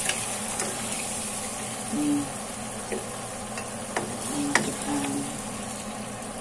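A spatula scrapes and clicks against a nonstick wok while the ginger soy-sauce chicken in it keeps sizzling with the flame just turned off. A few sharp clicks and two short low hums are heard among the scraping.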